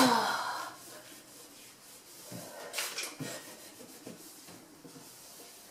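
Cloth rubbing and wiping inside a kitchen cupboard. A sharp knock at the start rings briefly, and a few lighter knocks and scrapes follow about three seconds in.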